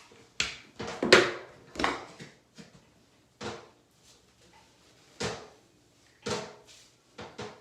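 Hard hair-styling tools, a flat iron or hot comb, being handled and knocked against a hard surface: a string of irregular sharp clacks, the loudest about a second in.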